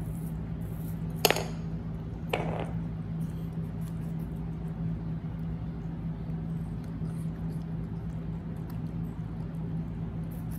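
Two sharp clinks of small ceramic saucers on the floor, about a second apart, the first sharper with a short ring, over a steady low hum.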